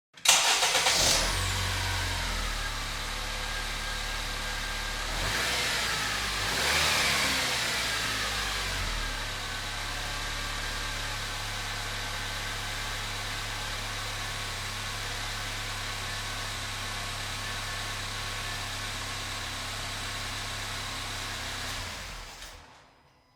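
Car engine starting with a sudden loud catch, revved briefly twice, then settling into a steady idle that fades out near the end.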